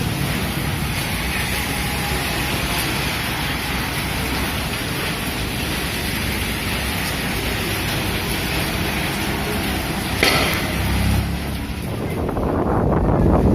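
Steady rush of heavy rain and strong wind, with a sharp knock about ten seconds in; near the end, wind buffets the microphone as a deep rumble.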